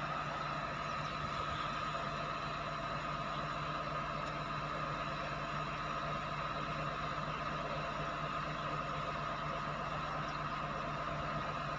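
Heavy diesel machinery idling steadily: a constant engine drone with an even hum, no revving or load changes.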